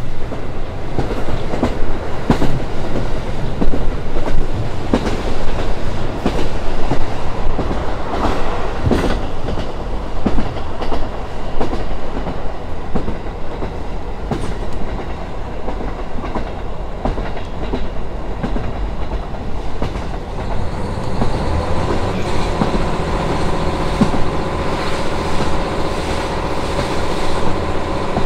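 Running sound inside a KiHa 40 diesel railcar: a steady rumble with repeated sharp clacks of the wheels over rail joints. About 21 seconds in, the diesel engine's steady multi-toned drone comes up under the rail noise as the car powers.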